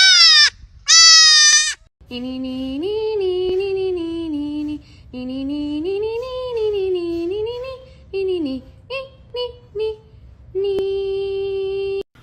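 A goat kid bleating loudly twice, then a black-and-white cat meowing in long drawn-out calls that rise and fall in pitch over a few seconds each, followed by several short meows and one long level note.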